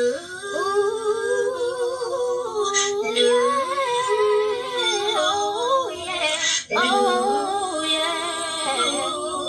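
Multitracked a cappella harmony: one woman's voice layered in several parts, singing held wordless chords that shift every second or two. A short hissing breath cuts through about three seconds in and again near six and a half seconds.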